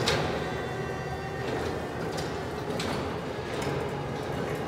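Raymond side loader forklift truck driving: a steady low drive hum with a few short knocks and rattles from the machine as it moves.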